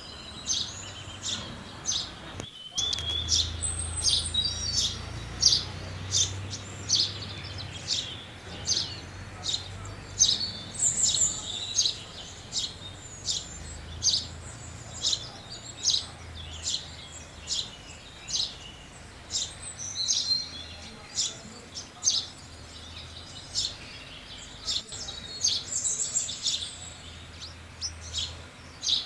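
House sparrows chirping, many short high chirps about one or two a second, over a steady low hum. The sound drops out briefly about two and a half seconds in.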